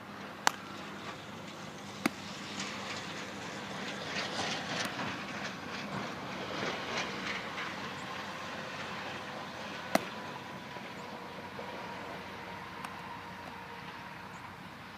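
A baseball smacking once into a catcher's mitt about ten seconds in. Two other sharp claps come about a second and a half apart near the start, and a rattling, rumbling outdoor noise swells and fades in the middle.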